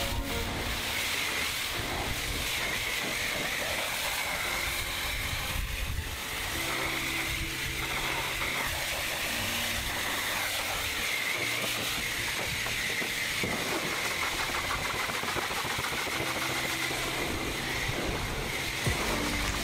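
Self-serve car wash pressure wand spraying high-pressure water onto a pickup truck's body, a steady hiss.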